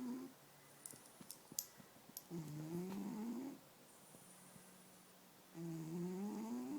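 Sleeping cat snoring: slow, tuneful snores, each about a second long and rising in pitch, roughly every three seconds. A few faint clicks come between the first two snores.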